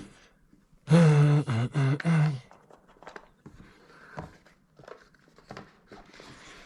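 A man's brief wordless vocal sound, like a hum or effort grunt, in three short pieces about a second in. Then faint rustling and light knocks of board-game pieces and bags being packed into a box.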